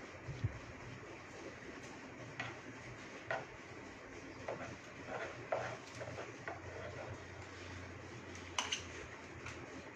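Metal palette knife clicking and scraping against a metal cake turntable and the cream bowl while cream frosting is spread on a cake: scattered light taps, a few louder ones about eight and a half seconds in, over a steady low hum.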